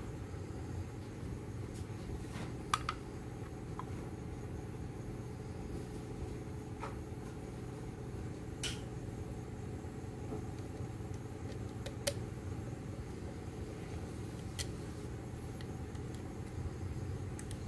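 A few scattered light clicks and taps as the plastic parts of a homemade PVC pump housing are handled and fitted together, over a steady low background hum.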